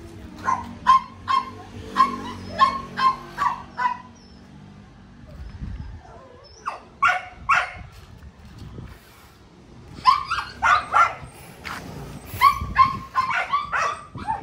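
Dog barking in quick repeated runs, about three barks a second: a run of roughly nine at the start, a few more a few seconds later, and another rapid run near the end.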